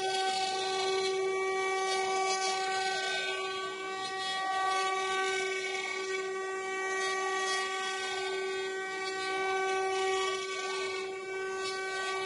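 Two 800 W spindle motors of a mini CNC router running at high speed with a steady high whine, while the bits mill a 3D relief into a wooden board.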